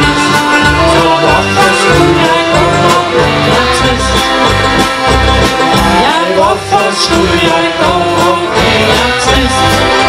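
Live band music led by accordion, with a steady bass beat.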